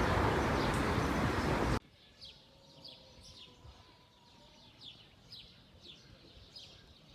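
Wind noise on the microphone, cut off abruptly about two seconds in. After that, faint birds chirping in short falling notes, roughly two a second.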